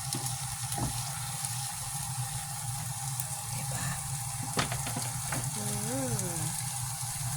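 A steady hiss, with a few sharp clicks past the middle and a short hummed vocal sound that rises and falls near six seconds in.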